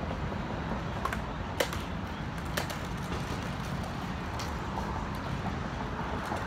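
Outdoor background noise, a steady low rumble, with a few sharp clicks or taps, the loudest about a second and a half in.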